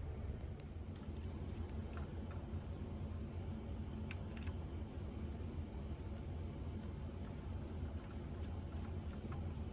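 A steady low hum with a few light clicks and scratches over it, the clearest about a second in and again around four seconds in.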